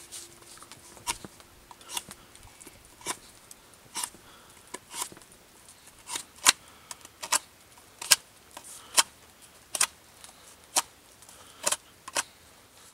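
Knife carving the wooden head of a bushcraft maul, a sharp snick with each cut, roughly one a second and unevenly spaced.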